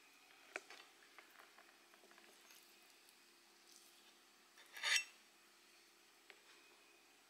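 Faint clicks of a fork against a plate as pieces of salted fish are picked off it, with one louder, brief scrape about five seconds in.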